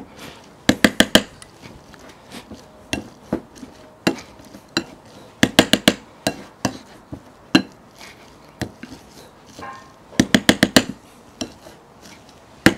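Wire potato masher mashing marrowfat peas into mushy peas in a bowl, knocking against the bowl in sharp clinks. The clinks come in quick runs of four or five, about every five seconds, with single taps between.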